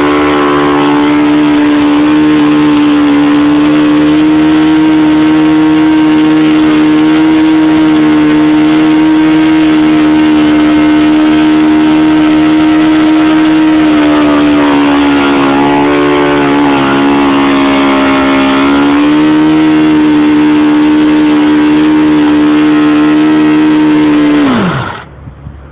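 ASP FS-30 four-stroke model glow engine, fitted with a fixed control-line venturi and no throttle, running steadily at full speed while turning a Graupner 10x6 propeller. Its speed sags a little about two-thirds of the way through and then picks back up. Near the end it is cut off and quickly winds down to a stop.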